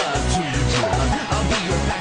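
Electronic pop music with a steady beat.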